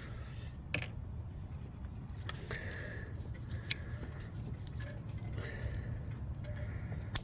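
Small clicks and light scraping from handling a plastic coil pack wiring-harness connector, with a sharper click near the end.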